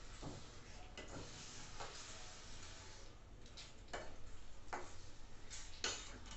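Metal spatula stirring a thick prawn gravy in a stainless steel kadai: scattered clicks and scrapes of the spatula against the pan, coming more often in the second half.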